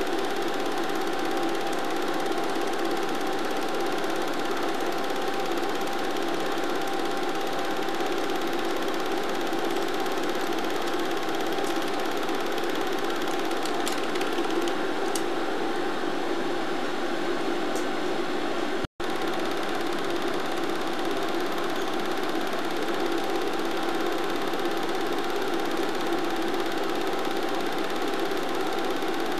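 Steady mechanical whirring and clatter of a film projector running, with an even pitch that does not change. It cuts out for an instant about nineteen seconds in.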